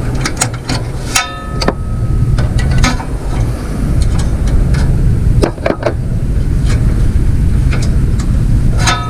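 Hand tools clicking and knocking against the metal parts of a zero-turn mower being taken apart, with a short ringing metal clink about a second in and another near the end, over a steady low rumble.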